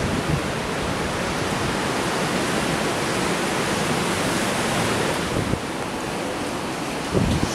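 Steady loud rush of hurricane-force wind and surf, with a brief low rumble of wind buffeting the microphone near the end.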